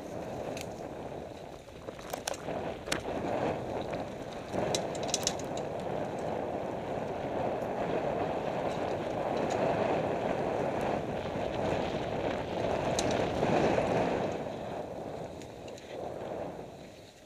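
Downhill mountain bike ridden fast down a dirt trail: wind rushing over the helmet-mounted microphone together with tyre rumble, broken by sharp rattles and clacks from the bike over bumps, several a few seconds in and more around the middle.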